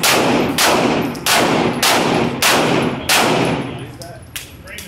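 Pistol fired six times in steady succession, about one shot every 0.6 seconds, each shot echoing off the walls of an indoor range.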